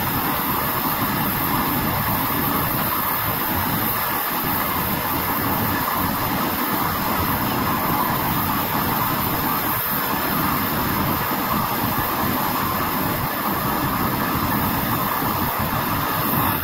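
Propane blowtorch burning with a steady, even hiss of flame as it heats a steel knife blade; the sound stops suddenly near the end.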